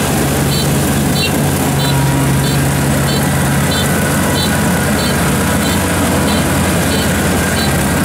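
Rice combine harvester's diesel engine and threshing gear running steadily under load. A short, high beep repeats about every 0.6 seconds over it, typical of the machine's warning beeper.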